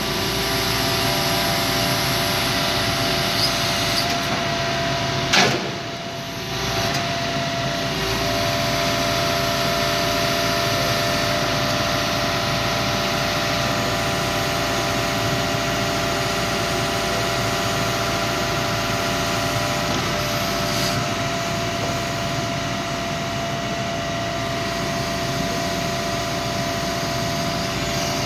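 Hitachi ZX170W-3 wheeled excavator running under hydraulic load as its boom and arm extend and lower: a steady diesel hum with a steady whine over it. One sharp knock about five seconds in.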